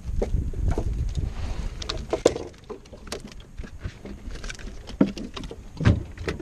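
Wind rumbling on the microphone at first, then a series of knocks and clunks as a fish is handled aboard and the Yeti cooler's hard lid is opened and shut.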